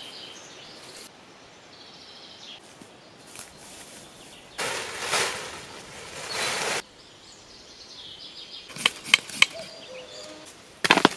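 Faint birdsong, then a plastic tarp rustling loudly for about two seconds as it is handled. Near the end come several sharp scrapes of a ferro rod being struck to throw sparks.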